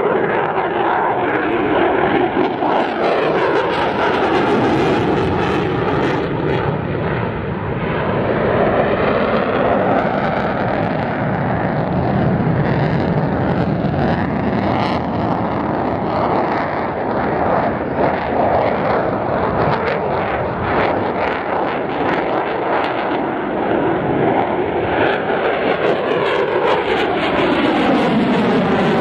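Lockheed Martin F-22 Raptor's twin Pratt & Whitney F119 turbofans running in afterburner in flight: loud, continuous jet noise with a slow swishing sweep that rises and falls as the jet moves across the sky. Through the middle stretch there is a rattling crackle.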